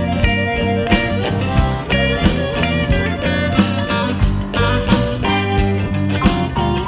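Blues band recording in an instrumental passage between sung lines: guitar over bass and drums keeping a steady beat.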